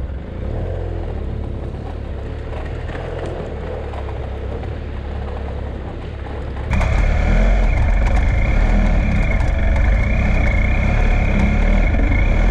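BMW F800GS parallel-twin motorcycle engine running as the bike rides over a rough, rocky track, heard from a camera mounted on the bike. About seven seconds in the sound suddenly gets louder, with a steady high whine added.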